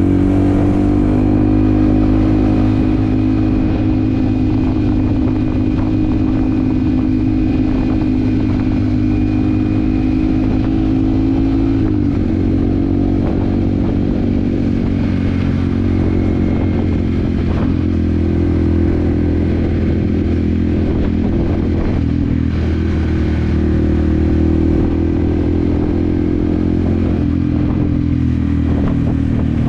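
Yamaha WR155R's single-cylinder engine running while riding at a steady speed. Its pitch holds even, dipping slightly about twelve seconds in, then settling again.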